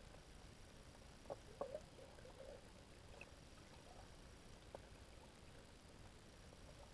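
Near silence underwater, with a few faint short clicks about a second and a half in and one more near five seconds.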